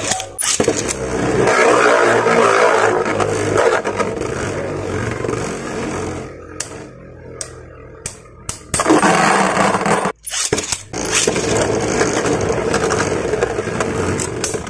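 Beyblade Burst spinning tops whirring and scraping across a plastic stadium floor. The whir dies down for a couple of seconds, with a few sharp clicks as the tops knock together, then starts loud again about nine seconds in.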